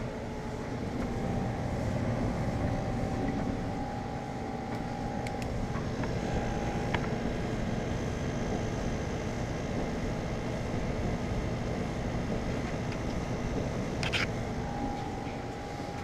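Homemade heat pump dryer running: a dehumidifier's refrigeration compressor and blower fan, with the clothes dryer's drum turning, making a steady hum with a whirring rush of air. The compressor has just kicked on after its delay-on-make timer ran out.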